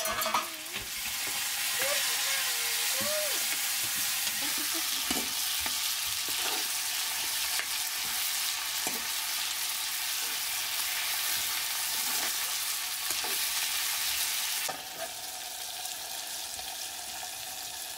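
Meat and greens sizzling in a small iron kadai while a metal ladle stirs and scrapes the pan. About 15 seconds in the sizzle turns quieter and muffled as the pan is covered with a metal plate.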